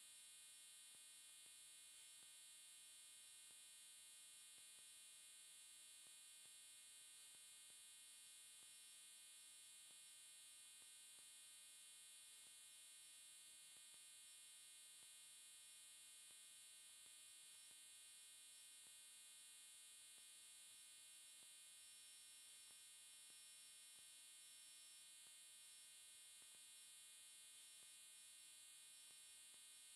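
Near silence: a faint, steady electrical hum with a high hiss, unchanging throughout.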